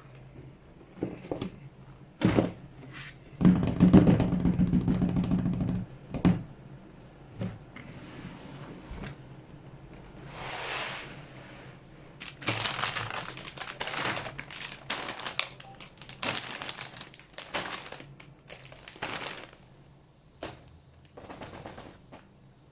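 Plastic model kit and its packaging being handled: scattered knocks and taps, a rapid rattle lasting a couple of seconds early on, then a run of short crinkling bursts like plastic bags or sheets being handled.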